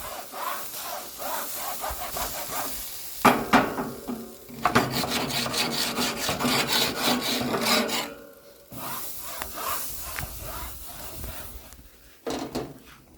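Nexgrill grill steamer brush, its cold-water-soaked sponge head scrubbed back and forth over hot grill grates to steam off grime, in quick rubbing strokes. Two sharper knocks come a few seconds in.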